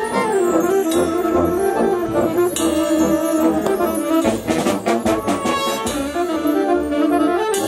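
Brass band playing live: trumpets, trombones, saxophones and sousaphones carry a melody over drum kit, timbales and congas, with a quick run of drum hits just past halfway.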